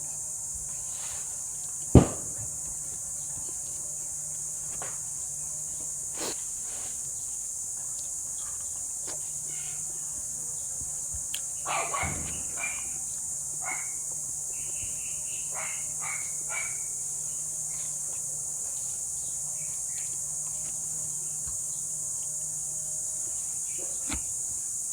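Steady high-pitched insect chorus, with one sharp knock about 2 seconds in and a few clicks and clinks around the middle.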